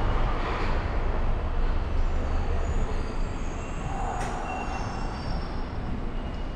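Subway train running through an underground station: a steady rumbling noise, with thin high-pitched squealing tones coming in about halfway through and a single sharp click.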